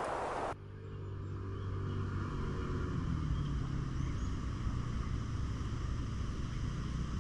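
Rushing wind noise on the microphone while cycling cuts off abruptly about half a second in. Then a low, steady rumble with a faint hum and gusty wind buffeting the microphone.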